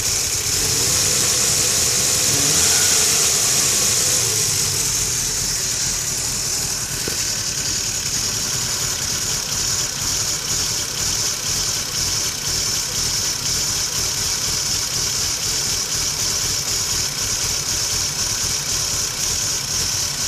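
Lexus IS300 engine idling warm and running rough, with an uneven pulsing beat from a misfire that sets the car shaking badly, alongside a VVT fault (code P1349). A high hiss sits over the engine sound, strongest in the first few seconds.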